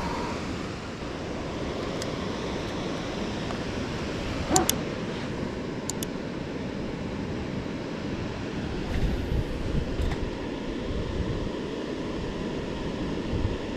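Steady rush of water pouring over a river weir, with a few short clicks.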